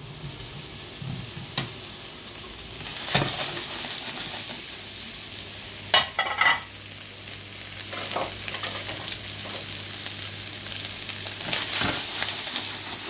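Small pork meatballs sizzling as they brown in a hot, lightly oiled heavy-bottomed pan, with a few sharp knocks, the loudest about six seconds in.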